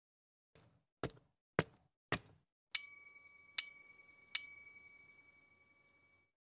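Cartoon sound effects: four short clicks about half a second apart, then three bright bell dings less than a second apart, the last ringing out and fading over about two seconds.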